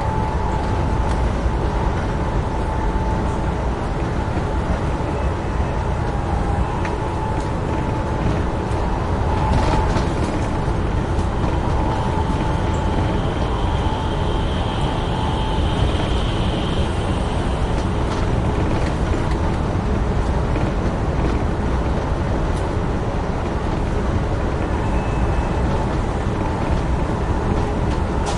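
Amtrak Northeast Regional passenger train running at speed: a steady rumble of wheels on rail with a level whine underneath, a few faint clicks, and a higher whine rising in for a few seconds about halfway through.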